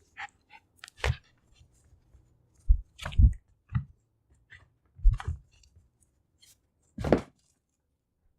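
Jack Russell Terrier making short, wet mouth and nose noises while mouthing a toy: about six brief bursts with small clicks between, and no growl.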